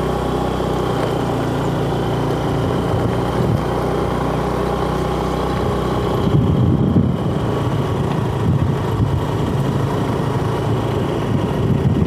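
A vehicle's engine running steadily as it drives along a road, its sound changing a little about six seconds in.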